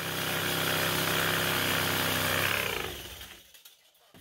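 Electric power tool running steadily for about three seconds, then winding down after it is switched off.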